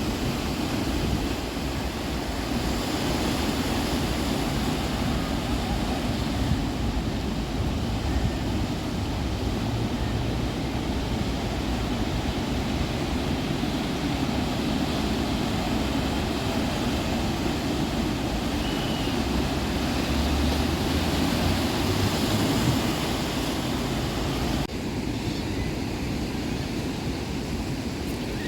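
Sea surf washing steadily on the shore, with wind buffeting the microphone in a low rumble. The sound changes abruptly about 25 seconds in.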